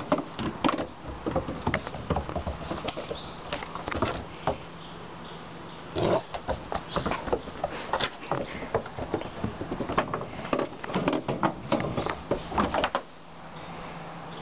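Great Dane puppy scrambling and playing on a wooden deck: irregular knocks and clatter of paws and claws on the boards, busy until near the end, where it calms.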